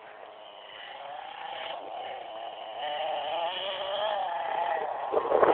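CEN Genesis RC monster truck's small nitro engine running, its pitch wavering up and down with the throttle. It grows steadily louder as the truck drives closer.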